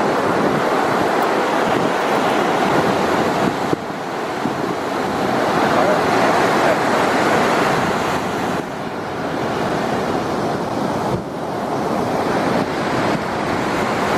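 Ocean surf washing onto a sandy beach, a steady wash that swells and eases, with wind buffeting the microphone.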